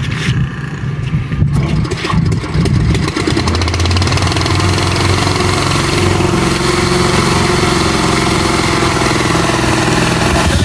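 Small generator engine, fitted to a motorcycle to spin a propeller fan, being started. It coughs and runs unevenly for the first few seconds, then settles about three seconds in and runs steadily at low speed.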